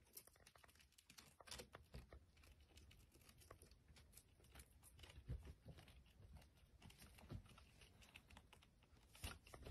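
Faint, irregular clicking and scratching of a hamster's claws gripping the wall as it climbs.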